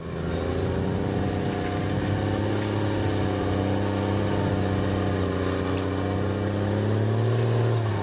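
Heavy forestry machine's engine running steadily under load, getting a little louder near the end.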